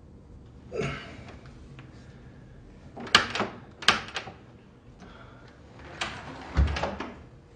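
Door handling: a short creak, a couple of sharp clicks as of a latch or lock, and a heavy thud near the end as the door is shut.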